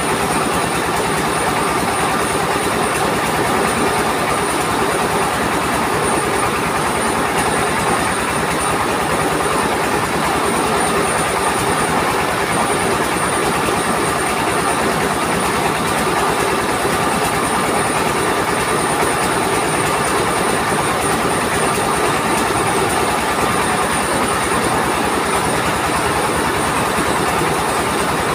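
Mobile rice mill running: a diesel engine and its belt-driven rice huller and polisher running steadily, a fast even pulsing with a constant mechanical rattle and a faint high whine on top.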